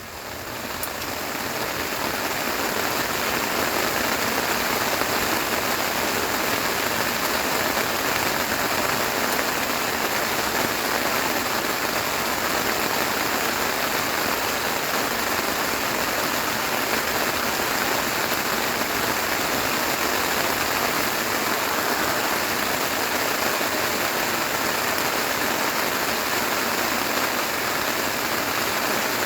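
Steady, dense rain falling, fading in over the first couple of seconds and then holding even.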